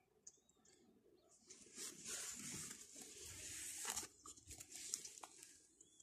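Faint rustling and crackling of dry grass and brush, starting about a second and a half in and dying away near the end.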